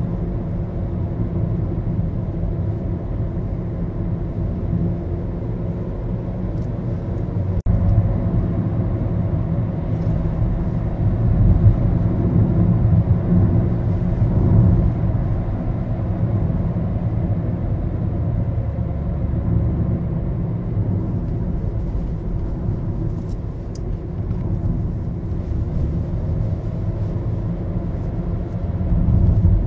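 Maruti Suzuki Baleno driving, heard from inside the cabin: a steady low engine and road rumble.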